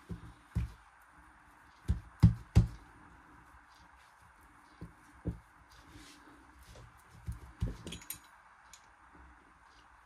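Dull thumps and knocks of hands pressing and shaping a filled bread dough on a silicone mat on a table, loudest as a quick run of thumps about two seconds in, with a few light clicks about eight seconds in.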